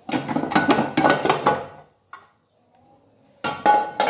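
Aluminium pressure cooker lid being opened: metal scraping and clattering as the lid is turned and lifted off, then a second burst of clatter with a short metallic ring as it is put down.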